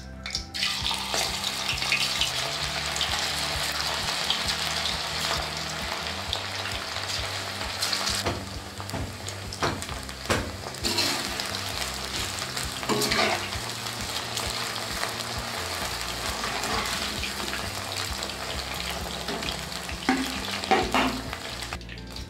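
Marinated chicken pieces deep-frying in hot oil in a metal wok: a steady sizzle that starts as the pieces go in. Scattered clinks and scrapes of a perforated metal skimmer stirring them against the wok.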